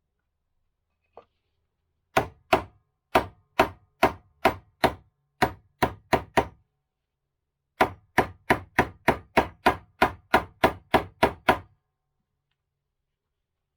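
Repeated hammer blows: about a dozen sharp strikes, a short pause, then a quicker run of about fifteen more, the kind of hammering used to drive parts out of a motorcycle's fork or front wheel hub.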